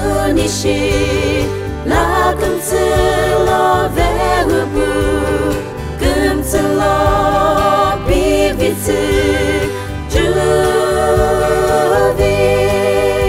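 A group of women singing a song together over an instrumental backing, some notes held long with vibrato.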